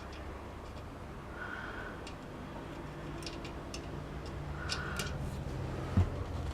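Hands working at a motorcycle wheel rim with the tyre and inner tube: scattered light clicks and taps, a soft puff about every three seconds, and one low thump near the end.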